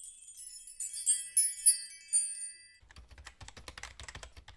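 Intro sound effects: a high, glittering chime sparkle, then from a little before the three-second mark a fast run of clicks like typing.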